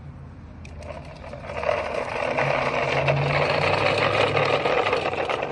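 Hard plastic wheels of a toy dump truck rolling over rough asphalt make a gritty rattle that builds about a second and a half in. Under it runs a low, steady hum.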